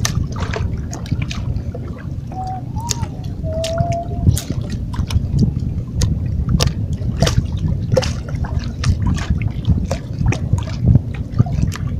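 Sea water lapping and splashing against shoreline rocks: a steady low rumble broken by many short irregular splashes and gurgles. A few short whistle-like tones sound about three seconds in.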